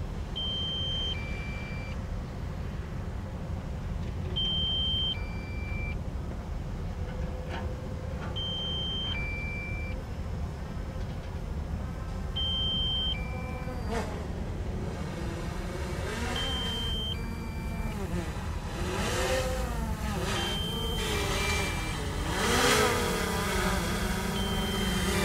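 Kobelco SK260LC excavator's diesel engine running steadily under a repeating two-note electronic beep, a higher note then a lower one, about every four seconds. About halfway a single knock, then the engine and hydraulics rise and fall in pitch as the machine works under load.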